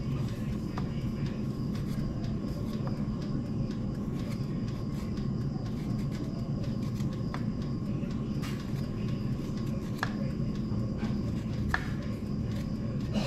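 A steady low hum from an unseen machine or room noise, with a few faint scraping clicks of a kitchen knife cutting the peel off a raw potato.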